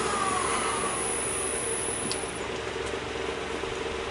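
Wood lathe coasting down after being switched off: a whine falling in pitch over the first second or so and a high whine fading out about two seconds in, over a steady machine hum.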